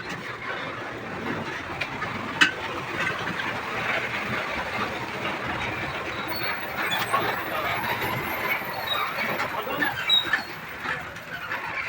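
Pickup tyre being levered off its steel wheel rim by hand: irregular rubbing and scraping, with a sharp metal click about two seconds in and a few more near the end.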